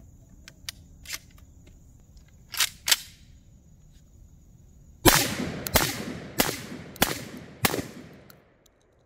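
Beretta 1301 semi-automatic 12-gauge shotgun fired five times in rapid succession with light 1 oz #7½ birdshot, about one shot every 0.6 s, each shot echoing briefly. A few light clicks of the gun being handled come first.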